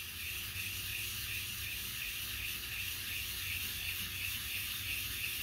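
Meat grinder knife rubbed back and forth on wet 220-grit sandpaper, a steady rhythmic scraping hiss. It is sharpening, lapping the knife's cutting faces flat.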